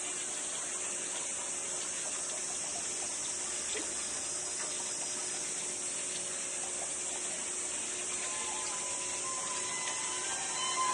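Steady high-pitched outdoor hiss, with a few faint soft ticks.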